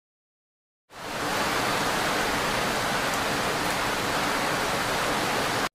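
A steady rushing noise, like rain or running water, comes in quickly about a second in and cuts off abruptly near the end.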